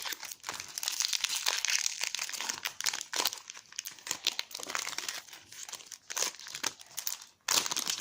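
Foil booster-pack wrapper of a Pokémon trading card pack crinkling as it is handled and torn open, with a dense run of small crackles that gets louder near the end.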